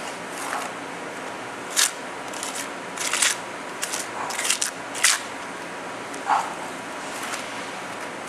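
Flat steel trowel scraping wet thin-coat repair mortar across hexagonal wire mesh on a concrete floor: several short, separate scraping strokes, most in the first five seconds, over a steady background hiss.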